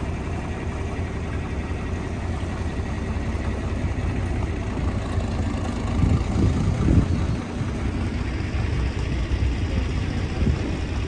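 Farm tractor engine idling steadily, a low rumble that swells briefly about six seconds in.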